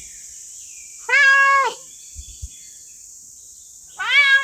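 Domestic cat meowing twice: a level meow of about half a second, then a second meow starting near the end. A steady high hiss runs underneath.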